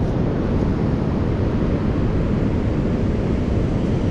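Steady low rumble of storm wind buffeting the microphone, with surf beneath it, unbroken throughout.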